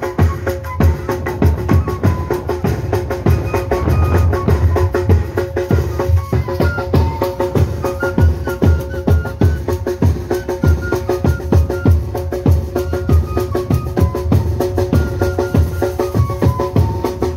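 Chiquitano tamborita band playing: a bass drum and a small snare-type drum keep a steady, driving beat under a high flute melody.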